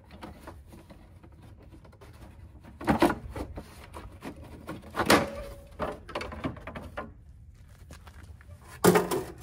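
The engine cover of a Toro CCR2000 snowblower being worked loose and lifted off by hand: a few separate knocks and clatters, the loudest about three seconds in, about five seconds in and near the end.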